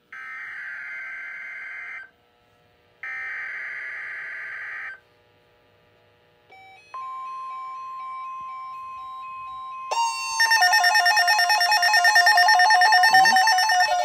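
NOAA Weather Radio receiver picking up an Emergency Alert System alert for a severe thunderstorm watch. First come two buzzy SAME data bursts of about two seconds each, then a steady single-pitch warning tone. About ten seconds in, the receiver's own loud warbling alarm beeps join it.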